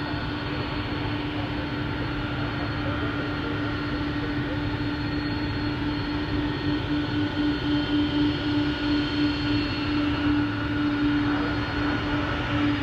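Boeing 767-300ER's twin jet engines running at taxi power: a steady hum with a constant low tone and a faint high whine. It grows slightly louder and begins to throb from about halfway through.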